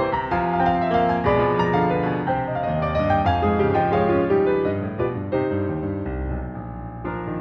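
Solo piano playing a flowing melody over a moving bass line, growing softer about two-thirds of the way through.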